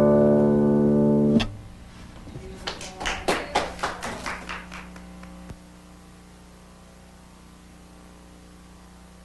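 Solo classical guitar holding a ringing final chord that cuts off sharply about a second and a half in. A brief run of quick, faint sharp taps follows, fading out, and then only a low steady hum.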